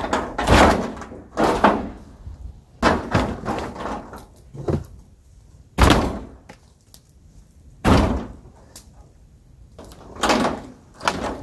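Old dry wooden boards of a plank shelter being struck and pried loose with a long wooden pole: about eight hard wooden knocks and bangs at irregular intervals, a second or two apart.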